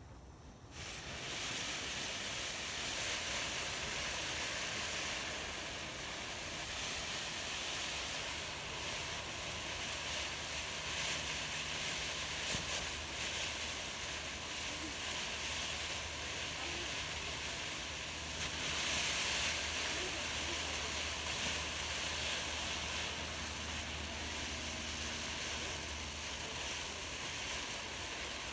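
Laser Sabers firework fountain from Iron Man Fireworks catching about a second in, then burning with a steady hissing spray, a little louder about two-thirds of the way through.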